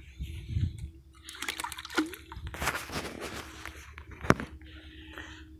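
Shallow lagoon water splashing and sloshing among wet grass in irregular bursts, with rustling and one sharp click about four seconds in.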